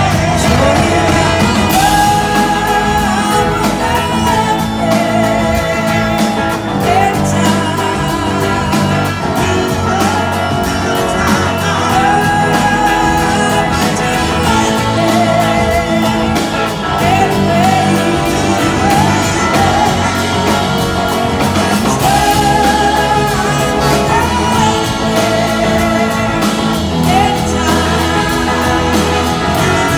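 Live soul-rock band playing, heard from the audience in a hall: a woman's lead vocal over electric guitars, bass, drums and a horn section.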